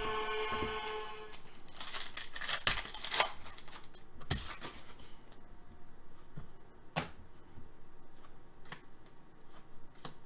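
A trading card pack's wrapper being torn open, a loud crinkling rip about two seconds in, followed by scattered light clicks and taps of cards being handled. A steady pitched tone stops about a second in.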